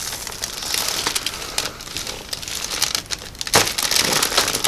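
Crinkling and rustling from a body shifting on a chiropractic treatment table, full of small crackles, with a sharper thump-like crack about three and a half seconds in.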